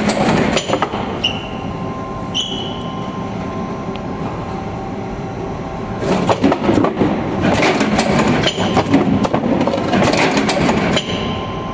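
DK390A shoe-box finger-hole riveting machine working a box: mechanical clattering with dense impact strokes, steadier running noise from about one second to six seconds in, broken by two short high tones, then dense clattering again until near the end.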